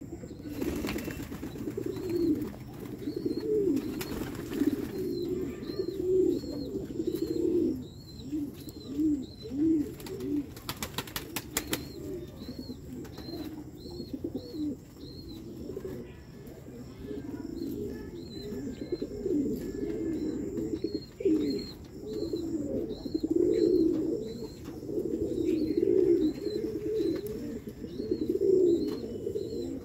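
A flock of fancy pigeons cooing continuously in low, warbling calls, with a couple of brief bursts of wing flapping. Short high chirps repeat through it.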